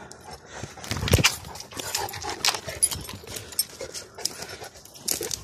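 Irregular footsteps, scuffs and rustles of a person and dogs walking along a forest path, with a heavier thump about a second in.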